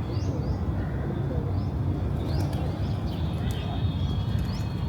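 City park ambience: a steady low background rumble, with short bird chirps and calls scattered through it and doves cooing.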